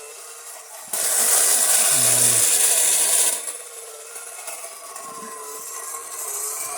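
A toy car's small electric motor running with a raspy, grinding whir. It turns much louder and hissier about a second in for roughly two seconds, then settles back to a quieter grind.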